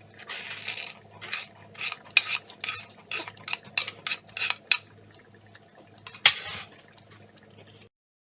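Kitchen utensil scraping and clinking against dishes as cinnamon sugar is transferred into a saucepan: a run of short scrapes and taps about two a second, then one louder clink about six seconds in, over a steady low hum. The sound cuts off abruptly near the end.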